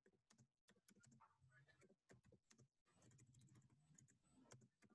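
Very faint typing on a computer keyboard: scattered, irregular key clicks.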